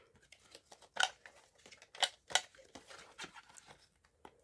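Small folding cardboard box being opened by hand: a handful of short, separate scrapes and snaps as its flaps are pulled and bent back.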